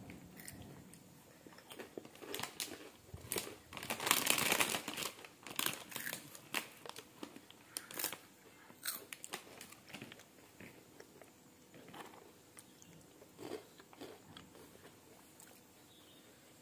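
A child biting and chewing crunchy cheese snack sticks: scattered crisp crunches, with a louder run of crunching about four seconds in.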